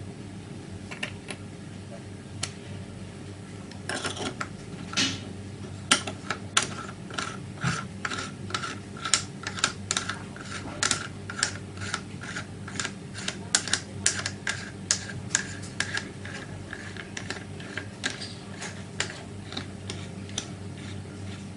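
Airsoft Moscart shotgun shell being filled with 6 mm BBs through its loading port with a tube-style BB loader: sharp, irregular clicks, about two a second, starting about four seconds in, over a steady low hum.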